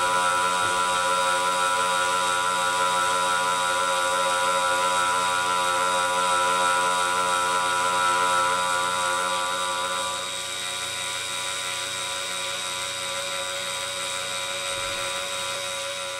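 Belt-driven drilling frame cutter on a rose engine spinning steadily while cutting a thread into a plastic workpiece, a steady whine made of several tones. It drops a little in level about ten seconds in.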